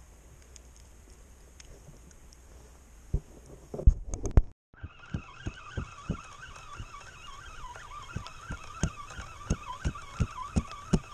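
Fishing tackle being handled: a few loud knocks about four seconds in, then from about five seconds on a wavering whir with repeated knocks, about three a second, typical of a spinning reel being cranked on the retrieve.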